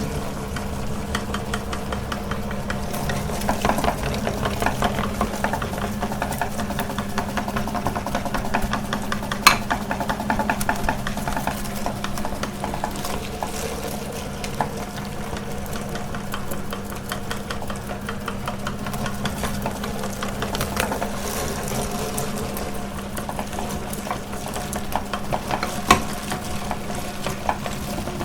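Electric meat grinder running steadily with a low motor hum while banana is fed through it, with irregular small clicks and crackles throughout and a couple of sharper clicks.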